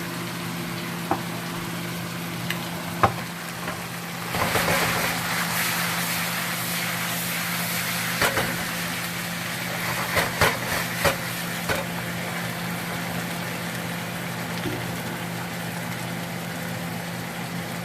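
Pork pieces sizzling in a frying pan, louder from about four seconds in until about twelve seconds, with a few sharp clicks and knocks over a steady low hum.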